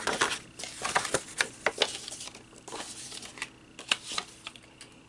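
Card-backed craft die package being handled and turned over in the hands: irregular light clicks, taps and rustles of card and packaging.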